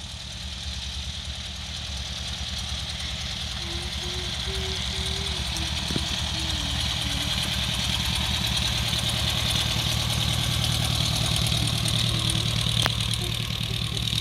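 The twin piston engines and propellers of a Piper PA-30 Twin Comanche running at low taxi power, a steady drone that grows louder as the aircraft draws close and passes.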